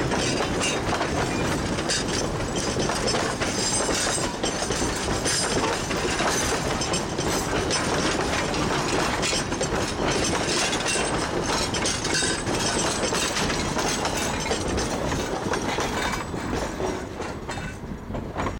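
Durango & Silverton narrow gauge passenger cars rolling past, their wheels and trucks clattering and clicking over the rails. The sound falls away near the end as the last car goes by.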